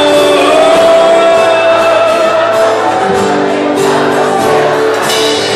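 Live sertanejo band playing a song, with a singer holding one long note over sustained chords for the first couple of seconds.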